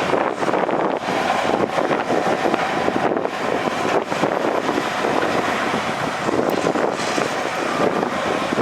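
Heavy earthmoving machinery running steadily, a dense, loud mechanical noise with a fine rattle throughout.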